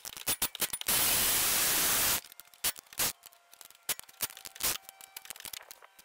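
Impact wrench hammering for just over a second on a 14 mm rear caliper bracket bolt to break it loose, after rapid clicking. Scattered clicks and knocks of tools on metal follow.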